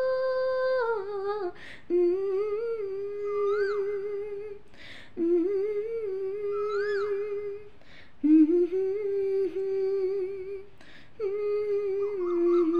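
A woman humming a slow Nepali folk-song melody unaccompanied, in four long held phrases with a breath between each; the last phrase has a wavering vibrato.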